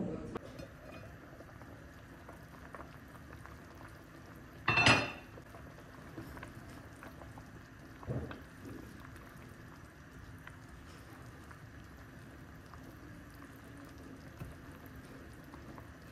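Lentil soup bubbling steadily in an enamelled cast-iron pot. About five seconds in, the heavy lid clanks loudly as it is lifted off, and a lighter knock of utensil on pot follows a few seconds later.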